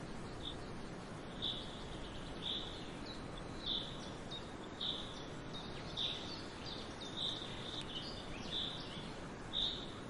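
A bird repeating a short, high call about once a second over a steady background hiss.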